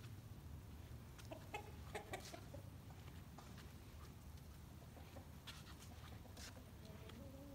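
Domestic hens clucking quietly: a short run of calls about a second and a half in, and another near the end, with a few faint clicks between them.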